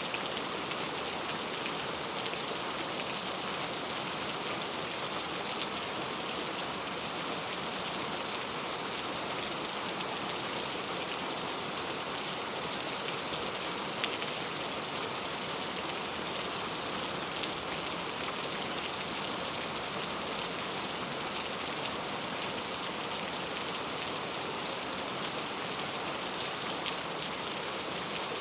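Rain falling steadily on a road surface: an even, unbroken hiss with a few louder individual drop ticks now and then.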